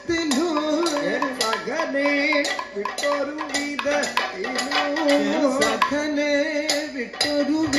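Kathakali padam singing: a male voice holding and sliding through ornamented notes, over regular sharp metallic strikes of the chengila gong and ilathalam cymbals, with drumming.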